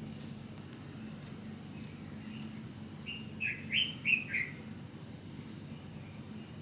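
A bird chirping: a quick run of about five short, falling chirps about three seconds in, with fainter high chirps just after, over a faint steady hum.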